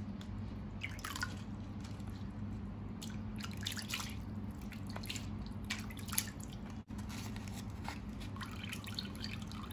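Water dripping and splashing lightly into a basin as a hand scoops wet soaked rice from the water into a zongzi leaf cone, with small scattered drips, over a steady low hum.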